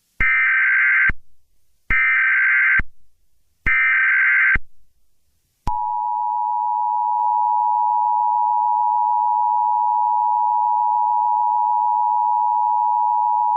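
Emergency Alert System tones. First come three short buzzing bursts of SAME header data, each under a second long and a little under a second apart. Then, about six seconds in, the steady two-tone EAS attention signal starts and holds without a break.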